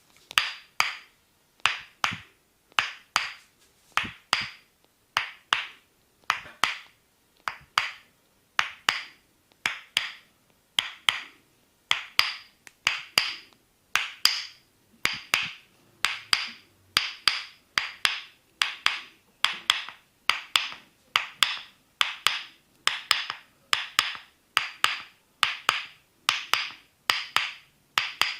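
Tok Sen massage: a wooden mallet tapping a wooden wedge held against the body. It gives sharp, ringing wooden knocks at about one and a half a second, some in quick pairs, in a steady, ongoing rhythm.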